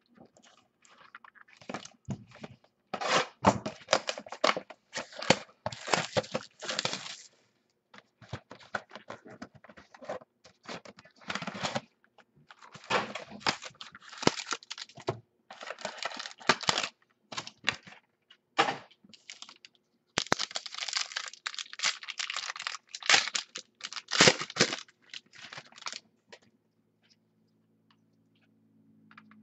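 Trading card box and packs being opened by hand: packaging and pack wrappers tearing and crinkling, with cards handled. The sound comes in irregular clusters of ripping and rustling, with short quiet gaps, and fades out near the end.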